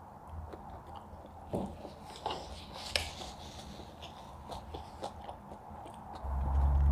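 Close-up mouth sounds of someone eating: chewing and biting with scattered small clicks and a few soft crunches. A louder low rumble comes in near the end.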